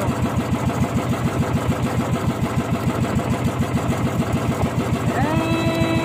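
A small boat engine running steadily, with an even fast throb of about eight beats a second. About five seconds in, a held pitched sound, likely a drawn-out voice, rises over it.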